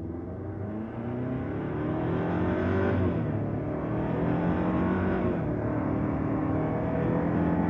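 2024 Ford Ranger's 2.3-litre EcoBoost turbocharged four-cylinder accelerating under load. Its pitch climbs, falls at an upshift about 3 seconds in, climbs again, and falls at a second shift about 5 seconds in before settling.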